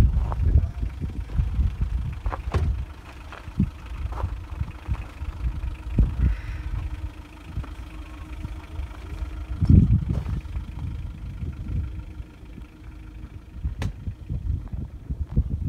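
Gusty low rumble of wind buffeting the microphone, swelling and easing, with a few sharp clicks.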